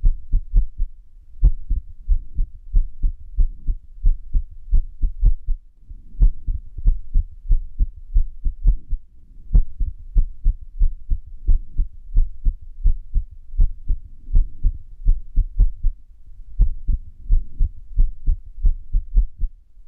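Heartbeat sounds, a long run of low thumping beats at uneven intervals with occasional longer pauses: an irregular heart rhythm (arrhythmia). A faint rushing noise comes between some of the beats.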